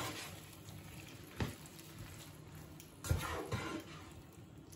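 Plastic slotted spatula stirring chicken and sliced onions in a tomato-paste sauce in a non-stick frying pan, over a faint sizzle. The spatula knocks and scrapes against the pan about one and a half seconds in, and again around three seconds in.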